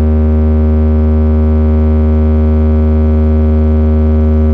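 A loudspeaker sound system of stacked horn-driver cabinets and amplifiers playing one loud, steady held electronic tone with many overtones and heavy bass, as in a speaker check.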